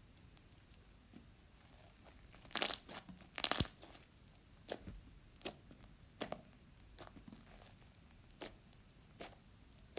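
Foam-bead slime being handled, stretched and squeezed: two louder bursts of crackling and tearing about two and a half and three and a half seconds in, then single small pops and clicks about once a second.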